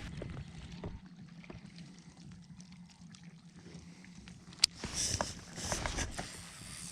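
Light water splashing and small knocks around a fishing kayak, with one sharp click about four and a half seconds in and a louder stretch of splashing just after it.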